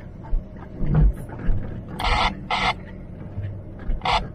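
Cabin noise inside a Range Rover L322 TDV8 crawling over a rough sandy track: a low rumble with a few knocks, the strongest about a second in. Four short hissing noises come twice around two seconds in and twice near the end.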